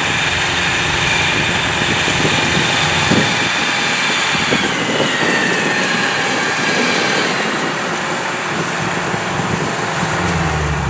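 Kubota DC-105X rice combine harvester running as it cuts rice: a steady, dense engine and threshing-machinery noise, with a high whine that slides lower partway through.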